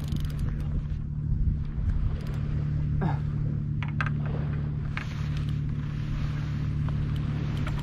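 Steady low hum of an idling engine, with a few faint clicks over it.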